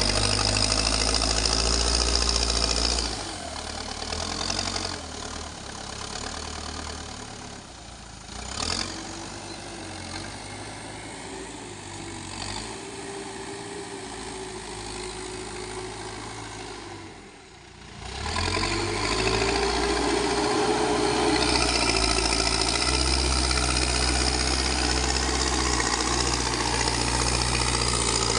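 Backhoe loader's diesel engine running under load, dropping back to a lower speed about three seconds in, then revving up again about two-thirds of the way through.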